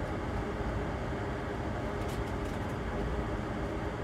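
A steady low hum and hiss, like a fan or machine running in the background. A few faint, brief crackles come about two seconds in.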